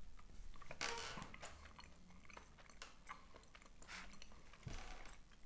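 A person chewing a grape gummy candy with its thin film backing still on: faint, soft chewing noises with a few small clicks.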